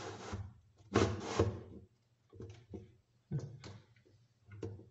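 Handling noise from fitting the filter foam into a Fluval 306 canister filter's plastic media baskets: two scuffing rubs early, then four short knocks of plastic on plastic.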